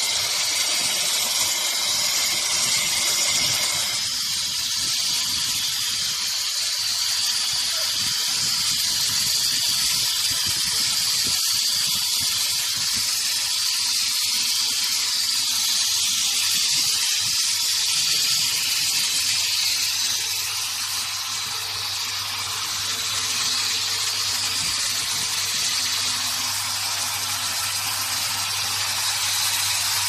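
A bottle-processing production line running with a steady hiss. A faint tone drops out about four seconds in, and a low machine hum joins about two-thirds of the way through.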